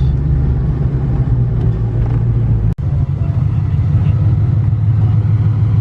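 Ford Mustang Cobra V8 running at low speed while being driven and parked, a steady low engine drone that drops out for an instant midway.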